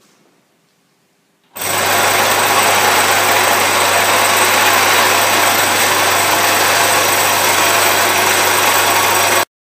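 Mechanical sieve shaker starting up about a second and a half in and shaking a covered stack of brass sieves holding soil: a loud, steady buzz with a low hum underneath. It cuts off suddenly near the end.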